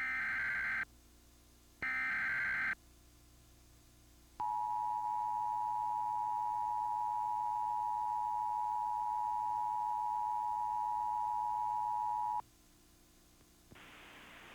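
Emergency Alert System tones: two short bursts of warbling digital SAME header data about a second apart, then a steady two-tone attention signal for about eight seconds that cuts off suddenly. They announce a flash flood warning. A faint hiss rises near the end.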